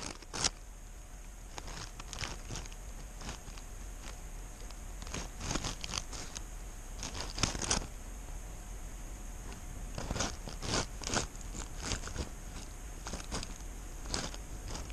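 A cat chewing a caught mouse, with irregular wet crunches and clicks of bone at close range from a camera on the cat itself.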